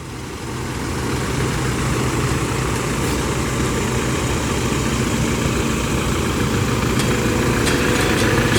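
Motor vehicle running steadily, a low, even engine and road rumble that fades in over the first second, with a few light ticks near the end.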